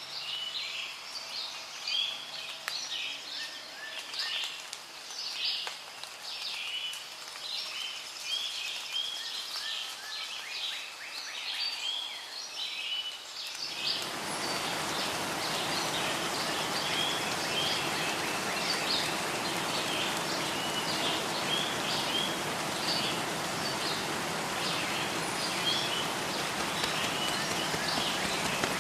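Songbirds chirping and singing in many short, repeated calls; about halfway in, steady rain comes in suddenly under the birdsong and keeps falling.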